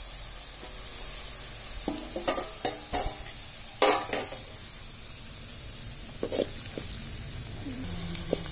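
Sliced onions sizzling in oil in an aluminium kadai as they fry toward light brown, with a slotted metal spoon scraping and clinking against the pan a handful of times as they are stirred.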